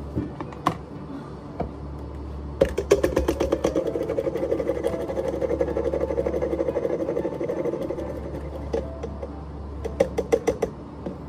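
A small machine running with a fast, even pulsing beat for about six seconds, stopping, then starting again briefly near the end, over soft background music.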